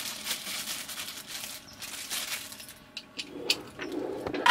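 Handling noise from hands working a screwdriver over a battery's BMS board: soft rustling and scraping, with a few light clicks about three seconds in.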